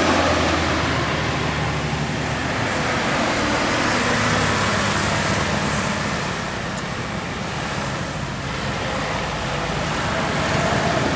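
Road traffic going by: a heavy vehicle's engine running low and steady, its note shifting partway through, over continuous tyre and road noise.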